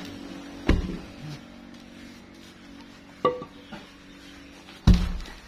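Heavy wooden thuds and knocks of a large teak log being rolled by hand: a deep thud about a second in, a sharper knock with a short ring past the middle, and the loudest deep thud near the end.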